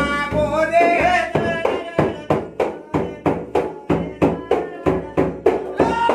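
A devotional folk song sung to a large hand-held frame drum. The singing is clear at first; from about a second and a half in the drum is struck in a steady beat of about three strokes a second, with the singing carrying on over it.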